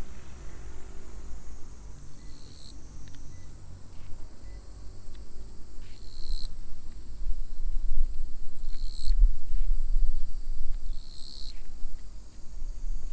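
Summer insects calling: a steady high-pitched drone, with a louder high call that comes four times, each lasting about half a second. Under it runs a low rumble that grows louder in the second half.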